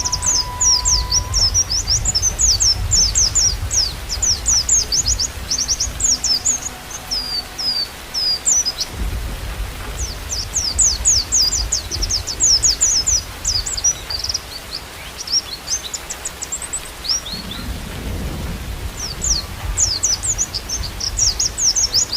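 White-eyes (pleci) singing: fast, high, twittering song phrases in bursts, with short pauses around a third and three quarters of the way through. A low rumble runs underneath.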